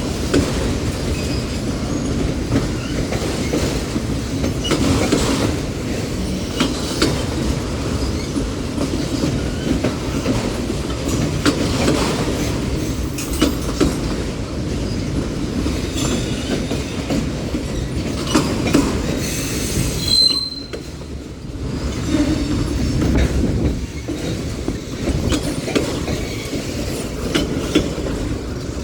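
Freight train cars rolling past at close range: a steady rumble of wheels on rail with repeated clacks over the rail joints and occasional high-pitched wheel squeal, the clearest squeal about twenty seconds in, followed by a brief dip in loudness.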